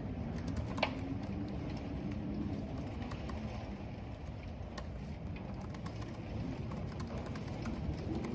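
Typing on a computer keyboard: scattered key clicks, one sharper about a second in, over a steady rush of rain and a low, wavering moan of wind.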